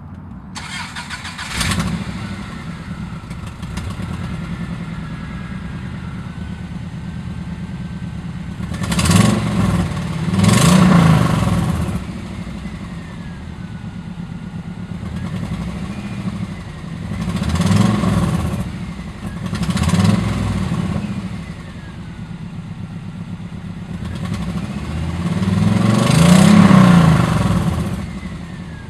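A 1997 Subaru Outback's flat-four boxer engine with aftermarket unequal-length headers starts up about two seconds in and idles, then is revved five times: two quick pairs and a longer rev near the end. The exhaust leaks at a header flange that was not tightened down against the engine block.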